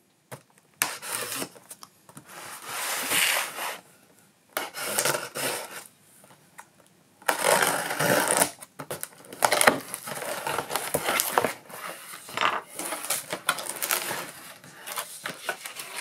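Cardboard box and packaging being handled and opened: irregular rustling and rubbing with scattered knocks and clicks.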